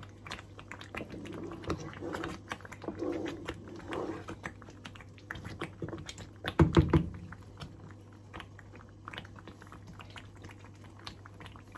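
Wooden spoon stirring and scraping thick, sticky ube halaya paste in a nonstick pan, making irregular wet clicks and smacks, with a louder thud about seven seconds in. The paste has thickened and is nearly cooked, so it needs constant stirring to keep it from burning.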